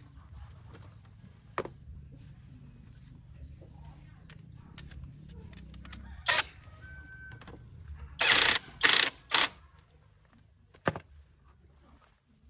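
Metal tool and part noises during a tractor gearbox repair: a few sharp clicks and clanks, then three loud harsh bursts in quick succession about eight to nine and a half seconds in. A low hum sits underneath and stops about ten seconds in.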